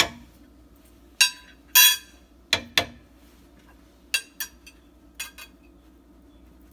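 Metal spoons clinking and tapping against a plastic measuring cup as ground spices are added to lime juice and oil. The sharp clinks come singly and in quick pairs, with a short rattle about two seconds in, and stop about a second before the end.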